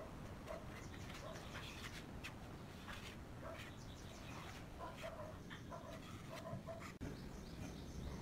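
Faint birds chirping in short repeated calls, over the soft scrape of a metal putty knife spreading white wood glue across a pine board.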